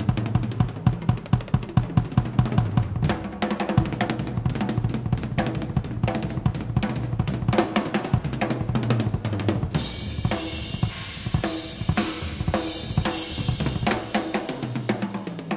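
Drum kit played solo at speed: rapid snare and tom strokes over bass drum. From about ten seconds in, crashing cymbals wash over the drumming for several seconds.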